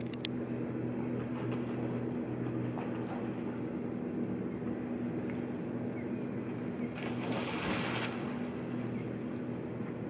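A steady low machine hum runs throughout. About seven seconds in, a brief rush of noise rises over it and fades within a second.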